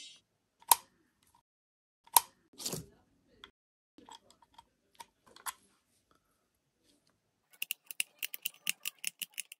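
Small metal clicks and taps as a key blade is handled and fitted into a vintage motorcycle ignition switch, then a quick run of light clicks near the end as the key is worked back and forth in the switch.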